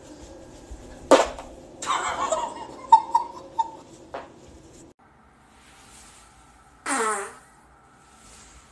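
A woman's fart about a second in, followed by her giggling laughter; after a cut, another short pitched fart about seven seconds in.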